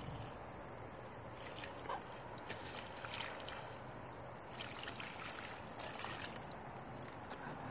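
Water poured from a bucket onto smouldering burnt paper and cardboard, a low steady splashing with a few faint ticks.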